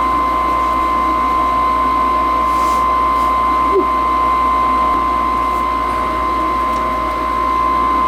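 90% high-efficiency gas furnace running: a steady mechanical hum with a constant high-pitched whine.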